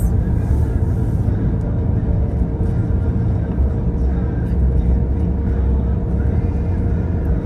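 Steady low road and engine rumble of a car driving, heard from inside the cabin, with a faint steady hum.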